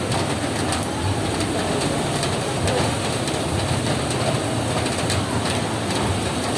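Steady heavy rain on a roof: a dense, even patter with scattered sharper drop hits.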